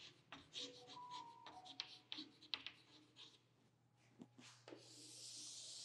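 Chalk writing on a chalkboard: faint quick taps and scratches as letters are formed, then near the end one longer, even chalk scrape as a line is drawn.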